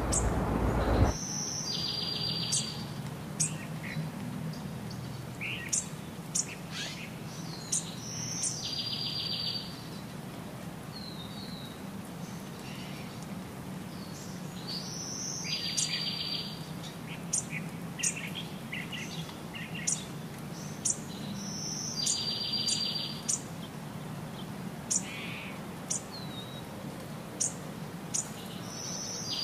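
Small birds chirping, with short high chirps and a buzzy trilled phrase that recurs about every six and a half seconds. A louder rushing noise cuts off about a second in.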